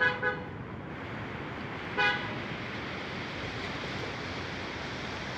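A vehicle horn gives two quick toots, then one more about two seconds in, over a steady rushing noise of the flooded river and wind.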